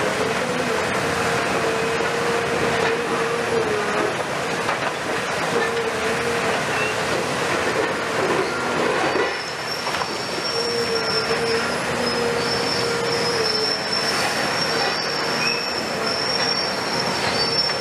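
Cat 340F UHD high-reach demolition excavator working its jaw attachment into a concrete building. Its Cat C9.3 diesel and hydraulics run steadily under load with a held whining tone, and a higher squeal joins about halfway through, over constant noise of concrete and rubble crumbling.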